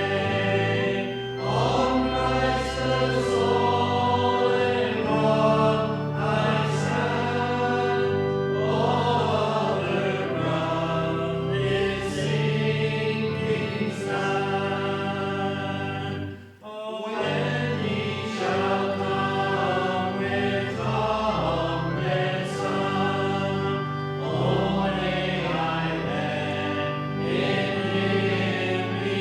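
A church congregation singing a hymn together with instrumental accompaniment, in long held notes. The singing and accompaniment pause briefly a little past halfway, between lines or verses, then carry on.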